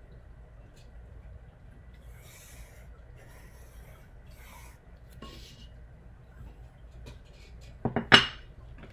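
Pencil lead scratching along a ruler on drafting paper in four or five short strokes. About eight seconds in comes a loud brief clatter as the ruler is lifted and knocks against the drawing surface.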